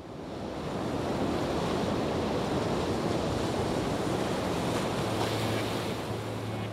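A steady rushing noise, fading in at the start, with a low steady hum joining about five seconds in.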